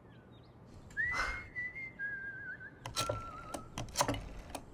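A person whistling a slow, wavering melody that starts about a second in, with two sharp clicks near the end.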